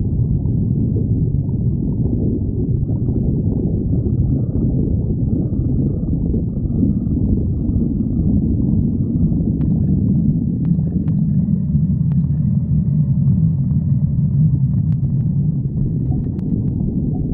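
A hungry stomach growling: a continuous low rumbling and gurgling, with a few faint clicks in the second half.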